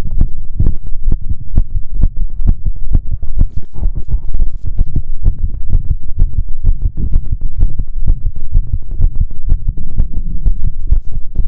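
Human heartbeat sounds: a steady rhythm of low, dull beats.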